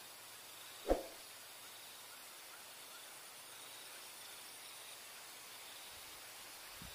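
Faint steady outdoor hiss with a thin high insect drone, broken by one short sharp thump about a second in and a softer knock near the end.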